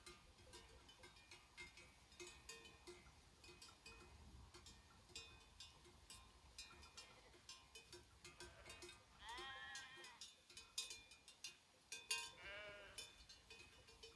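Sheep bells clinking irregularly as a flock grazes, with two sheep bleats, one about nine seconds in and a lower one about twelve seconds in.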